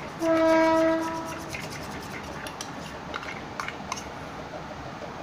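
A horn sounds once near the start: one steady, pitched blast of about a second that fades away. Afterwards a metal spoon stirs slime in a steel bowl, clicking against the rim a few times.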